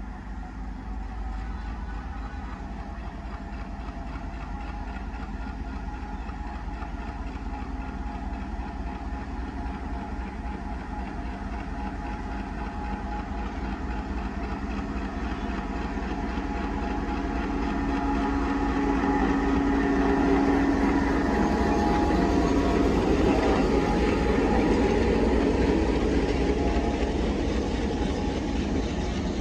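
WDM-3A diesel-electric locomotive's ALCO 16-cylinder engine running as the train draws near, growing steadily louder and loudest as the locomotive passes about two-thirds of the way in. Near the end the passenger coaches roll past on the rails.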